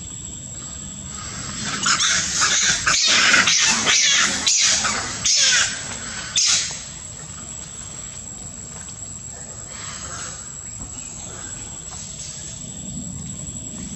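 Macaques screaming: a run of loud, harsh calls from about two seconds in until nearly seven seconds, over a steady high insect drone.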